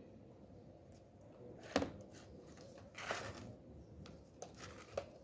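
Handling noise: a sharp click about two seconds in, a short rustle about a second later, and two lighter clicks near the end.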